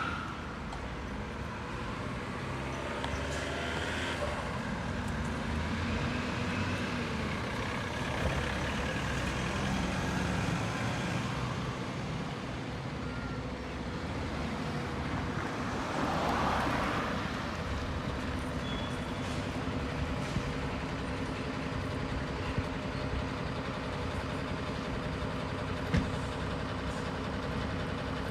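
Fire engine's engine running steadily, with a swell of noise about halfway through as the vehicle moves off or passes.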